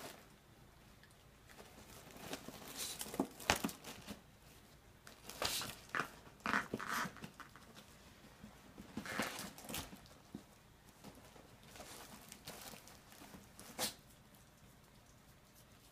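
A dog nosing and tearing at a white cardboard cookie box and its paper wrapping: faint, scattered bursts of rustling, crinkling and tearing, a few seconds apart.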